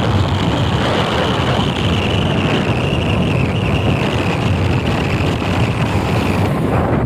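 Wind buffeting the microphone on a moving motorcycle, over the bike's engine and road noise. A faint high whine slowly falls in pitch and fades out near the end.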